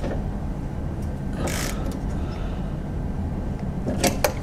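A steady low mechanical hum with hands working on parts under a car's front end: a short scrape about a second and a half in, then two sharp clicks near the end.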